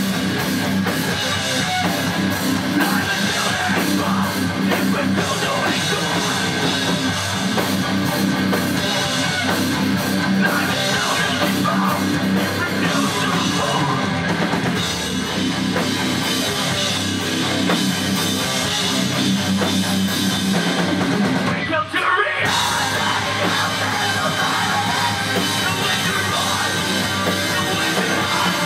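Live rock band playing loud, with electric guitars and a drum kit with cymbals. The music drops out for a split second about two-thirds of the way through, then carries on.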